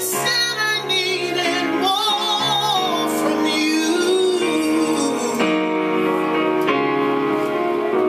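A woman sings held, wavering notes with vibrato, accompanying herself on an electronic keyboard with sustained chords that change a few times.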